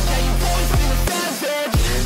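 Electronic background music with a heavy bass line and no vocals; the bass drops out briefly about a second in.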